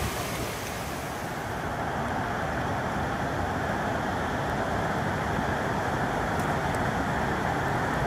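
Steady rushing of water over small creek cascades into a pool, an even, continuous wash.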